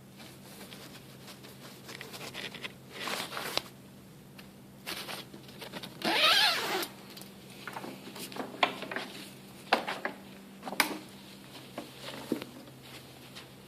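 Irregular handling noises: scattered clicks, knocks and rustles, with one louder scraping, squeaking sound about six seconds in, over a faint steady hum.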